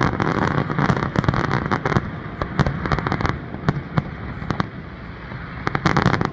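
Aerial fireworks bursting overhead: a dense, rapid run of sharp pops over constant crackling, thinning out in the middle and building again near the end.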